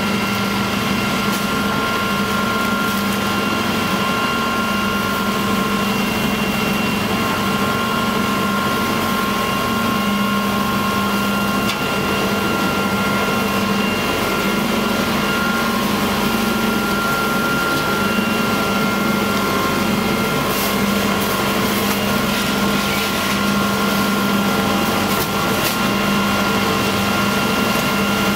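Rotary-drum garbage truck running steadily while stopped, a constant engine hum with a steady high whine over it.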